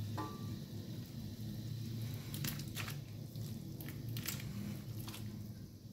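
Raw pork slices pushed by hand from a bowl into a steaming wok of hot water, giving a few short wet crackles and squelches in the second half, over a steady low hum.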